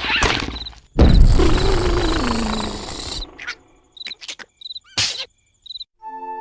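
Cartoon sound effects: a loud crash about a second in, trailing off with a falling tone, over steady cricket-like chirping, then a few sharp clicks.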